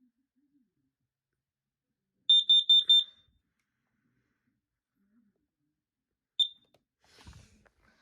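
Kidde carbon monoxide detector sounding on test: a burst of four quick, high-pitched beeps about two seconds in, the four-beep pattern of a CO alarm, then a single beep about four seconds later. A faint rustle follows near the end.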